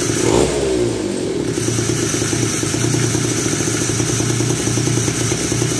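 Small 49 cc two-stroke engine of a homemade mini ATV running through a custom exhaust. It is blipped once about half a second in, then drops back to an even idle.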